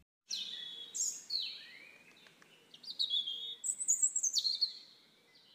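Birds chirping and calling, a run of high chirps, some stepping down in pitch, busiest about three to four and a half seconds in.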